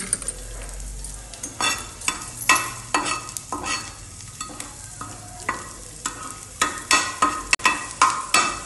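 Chopped garlic frying in a little oil in a pan, with a utensil scraping the pan as the garlic is stirred. The scrapes come irregularly and bunch closer together near the end.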